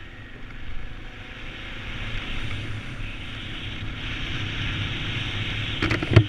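Motorcycle engine running with wind rushing over the microphone while riding, growing louder as it gathers speed. A couple of sharp knocks come near the end, then the sound cuts off.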